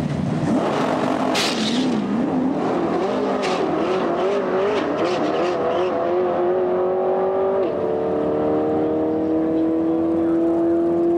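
First-generation Camaro drag car launching and accelerating down the strip: the engine note wavers unsteadily for the first few seconds, then holds a steadily rising pitch, with one gear change about seven and a half seconds in. A few sharp crackles in the first few seconds.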